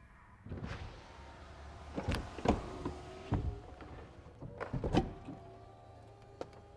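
BMW 4 Series Convertible's electric retractable hardtop starting to open. The side windows drop with a motor whir, then a string of sharp mechanical clunks and clicks as the roof mechanism unlatches, and from about five seconds in a steady motor hum as the roof panels begin to lift.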